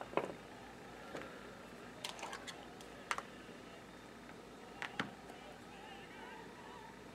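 A few light clicks and knocks of small objects handled on a tabletop: eyeglasses set down, then a small jar of cream polish opened and its lid put down, and a cloth picked up. The first knock is the loudest.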